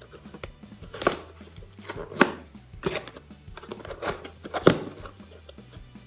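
About five short, scratchy tearing strokes as the tape seal on a cardboard box is slit and pulled open. They play over quiet background music.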